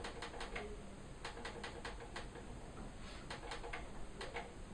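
Buttons on a Sony ICF-CD831L clock radio clicking as the alarm time is set, pressed in three quick runs of several clicks each.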